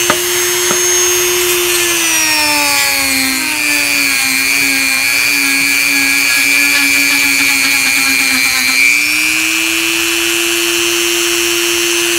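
Dremel MultiPro rotary tool with a small sanding drum running with a steady high whine. About two seconds in its pitch sags as the drum bears into the hollow plastic brush handle, grinding out the remains of the old knot. Near nine seconds the pitch rises back to full speed as the load comes off.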